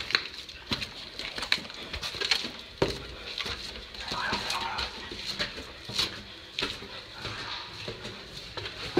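Irregular knocks, scuffs and footsteps of people moving about, with a few sharp clicks.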